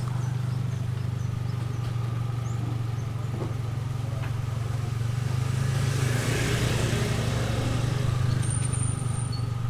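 A steady low motor hum, with a rush of noise that swells and fades about six to seven seconds in.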